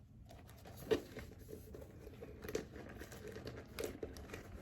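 Faint rustling and a few light taps as a wallet and a small handbag are handled.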